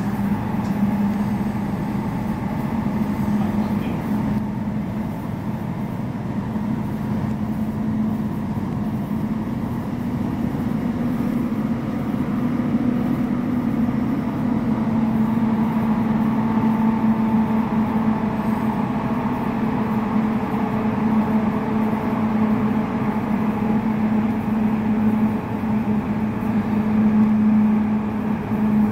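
Cabin running noise of a Class 345 electric train in motion: a steady rumble carrying a constant hum, with fainter steady tones above it.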